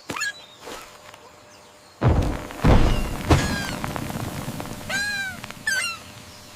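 Cartoon sound effects: a heavy thud about two seconds in, a second thud and a sharper knock soon after, then two short high squeals that rise and fall, in the manner of a cartoon animal's cry.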